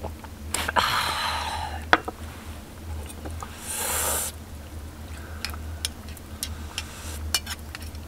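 Metal spoon scraping and clinking in a small stainless-steel bowl, with a run of light, sharp taps in the second half. Fabric rustles about a second in.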